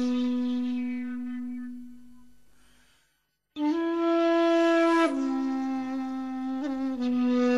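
Solo flute music: a held note fades away about three seconds in, then after a brief silence a new phrase starts on a higher note, steps down a second and a half later, and carries on with a short ornament near the end.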